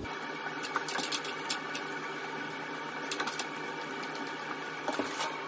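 A steady mechanical hum, with scattered light clicks and scrapes of a plastic back nut being turned by hand onto the plastic thread of a toilet siphon under the cistern.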